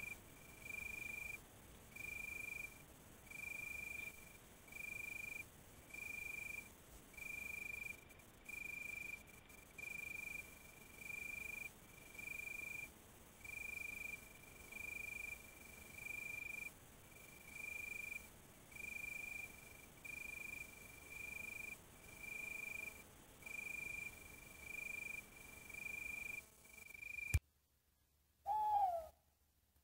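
A single high, pure note called over and over at an even pace, a little more than once a second, typical of a night-calling animal. It stops abruptly, and after a short hush one loud, brief call falls in pitch.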